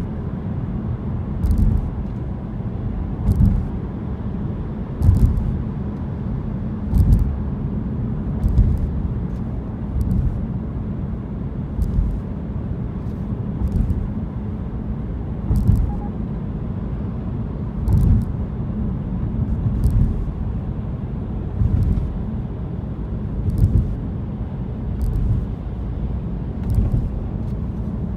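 Car driving on a road: a steady low rumble of engine and road noise, with short sharp thumps every one to two seconds.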